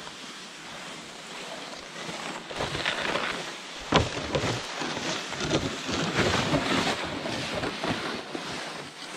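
Wind buffeting the microphone in a snowstorm, rising and falling in gusts, with a sharp knock about four seconds in.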